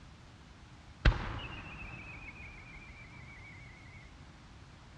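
An aerial fireworks shell fired from its mortar with one sharp bang about a second in. It is followed by a warbling whistle from the climbing shell that slowly falls in pitch for about three seconds.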